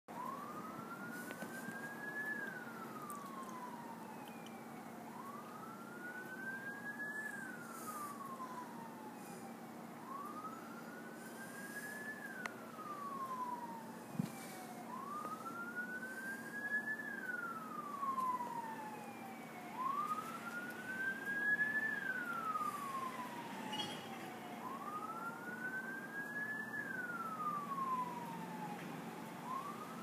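QFRS fire truck siren on a slow wail. Each cycle rises for about two seconds and falls for about three, repeating about every five seconds, over a steady low hum.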